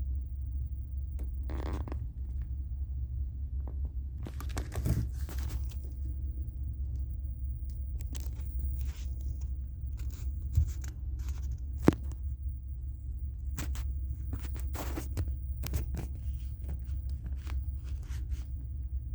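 A steady low rumble aboard a cruise ship at sea, with irregular rustling and scraping of a phone being handled and two sharp clicks a little past the middle.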